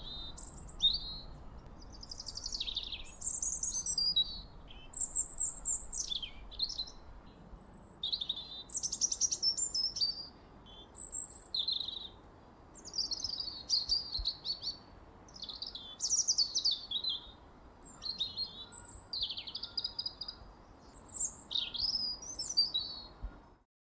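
A songbird singing: a run of varied high whistled and trilled phrases with sweeping pitch, broken by short pauses, stopping just before the end.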